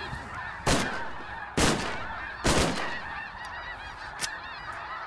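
Three shotgun blasts about a second apart in the first three seconds, then a fainter crack, over the constant calling of a large flock of snow geese overhead.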